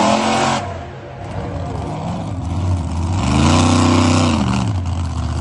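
Monster truck engine revving in two surges: a short one at the very start, and a longer one about three seconds in that climbs in pitch and falls away again.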